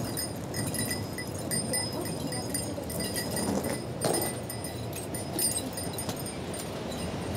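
Light metallic jingling and rattling from a wheeled shopping trolley and suitcase being pulled over pavement, over a steady street noise.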